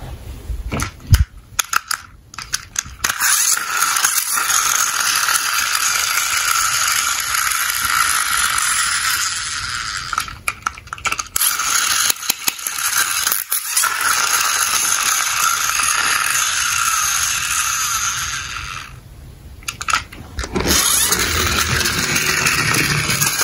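Plastic toy cars clicking and knocking as they are handled, then the plastic gears of a small toy police monster truck whirring with a steady rattle as its wheels spin. It comes in three long runs, with short knocks between them.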